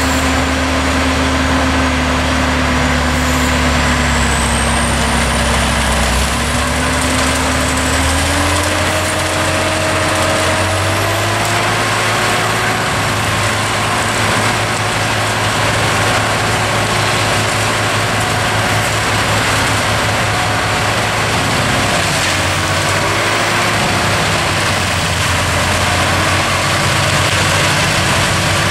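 Tractor diesel engine working hard to drive a forestry mulcher that shreds standing poplar trees: a loud, steady mechanical drone whose pitch climbs over several seconds early on and then holds.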